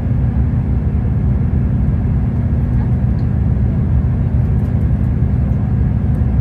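Loud, steady low rumble of a vehicle in motion, even and unchanging throughout.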